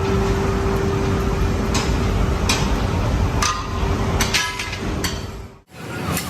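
Machine noise on a leaf spring production floor: a steady hum over a constant din, with several sharp metal clanks and knocks in the middle. It cuts off abruptly near the end to a different, thinner shop background.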